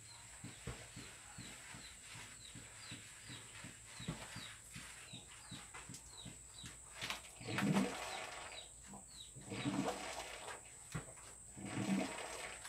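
Animal sounds: a bird's short, high, falling chirps repeat about twice a second. From about halfway, louder lower calls come roughly every two seconds, of the kind heard from farm animals.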